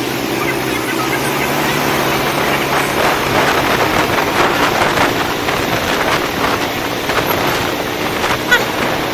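Busy street traffic: motorbike engines running, with the chatter of many voices in the crowd.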